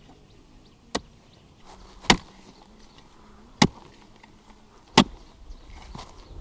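Four sharp chopping strikes of a blade, spaced about one to one and a half seconds apart.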